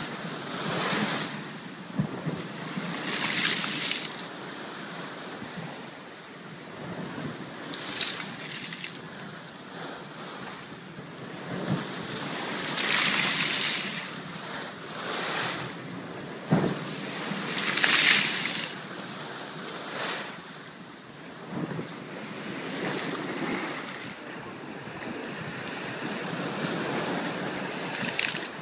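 Ocean waves breaking and splashing against a seawall, in repeated hissing surges every few seconds over a steady wash of surf, with a few sharp thumps. Wind buffets the microphone.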